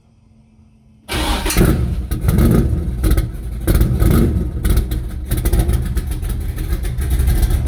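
Factory Five Cobra kit car's engine starting about a second in, then revved several times, its level rising and falling repeatedly.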